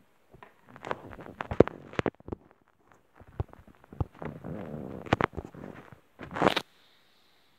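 Handling noise from a clear plastic tub of dry leaf litter being picked up, moved and set down on a tile floor: irregular clicks, knocks and rustles that stop suddenly about a second before the end.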